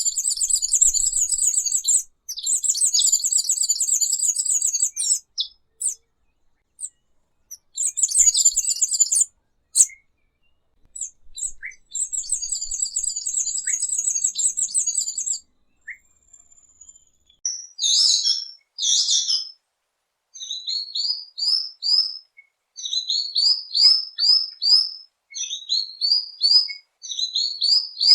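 Tanagers singing: first a series of long, high, buzzy trills of about two seconds each, then, after a short pause about two-thirds of the way through, a different song of short sharp notes repeated in quick groups.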